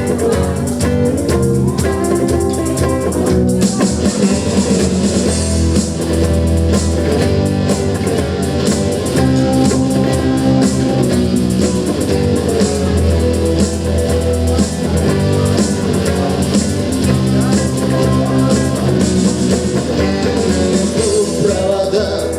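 Instrumental intro of a Russian rock song: guitar over a steady low bass line and drums, with no sung words yet.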